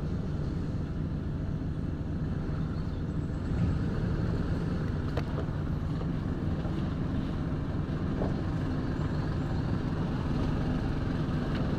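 Steady low rumble of a running engine, with a few faint clicks.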